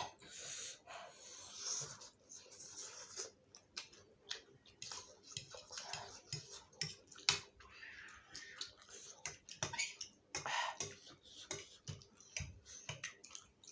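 Eating sounds of spicy instant noodles: chewing and wet mouth noises, with scattered sharp clicks and short hissy bursts throughout.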